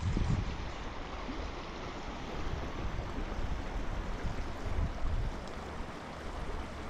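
Fast-flowing mountain river rushing steadily: a constant noise of running water.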